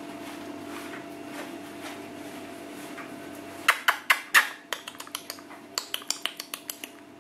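Puppies scrabbling on a tiled floor around a metal food bowl: a sudden cluster of loud sharp clicks and clinks about halfway in, then a quick run of lighter clicks, about four or five a second, that fades out.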